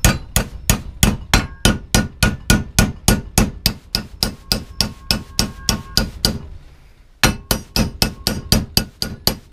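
A heavy hammer strikes a strip of aluminium clamped in a steel bench vise in steady, quick blows, about four a second, bending it over at the mark. The blows stop for about a second about two-thirds of the way through, then carry on.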